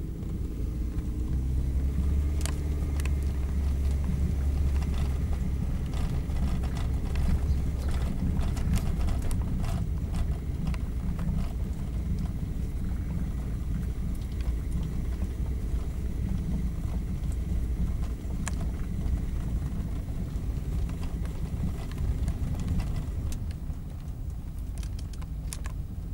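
A taxi driving, heard from inside the cabin: a steady low road and engine rumble, heavier in the first half, with a few sharp clicks and knocks here and there.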